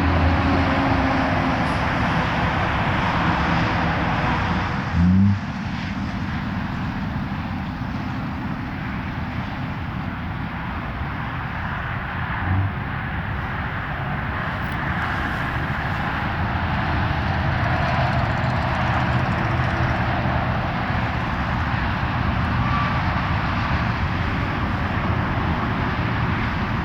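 Steady road traffic noise from passing vehicles, with a short, loud low sound about five seconds in; the siren is not sounding.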